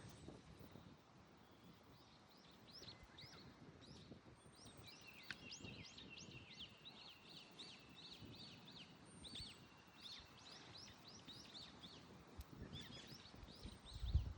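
Small birds chirping in quick repeated series, faint, over a low rumble of wind buffeting the microphone. A single low thump sounds just before the end.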